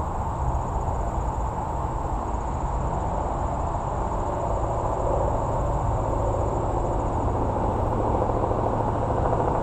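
Steady low rumble of interstate highway traffic, swelling slightly toward the end.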